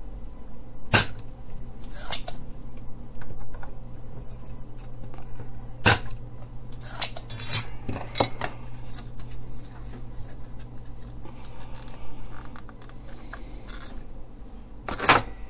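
Spring-loaded desoldering pump snapping as it sucks solder from a through-hole LED's joints on a circuit board, with scattered clicks and knocks of tools and the board being handled. Sharp snaps come about a second in, about six seconds in and near the end, over a steady low hum.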